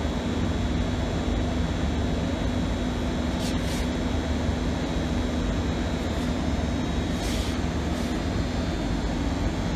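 Steady mechanical drone with a constant low hum, broken by two short hissing brushes about a third and three quarters of the way in.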